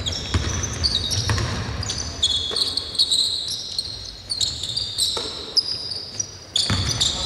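Basketball being dribbled on a hardwood court, with repeated short, high-pitched squeaks of sneakers on the floor, echoing in a large, nearly empty arena.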